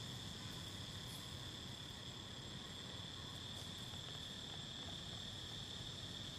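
Steady, high-pitched chorus of insects: an unbroken shrill drone with no pauses.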